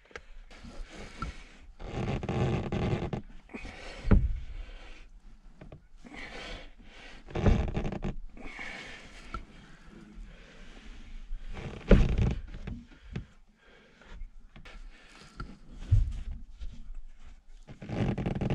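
Scraping, rustling and several sharp knocks as a panel is pushed and wrestled against an overhead opening in a boat's cabin ceiling, the loudest knock about twelve seconds in. Heavy breathing and grunts from the effort come in between.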